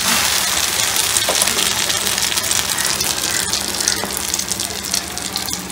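Egg-soaked bread slice frying in butter on a hot flat griddle (tawa), a steady loud sizzle with fine crackles.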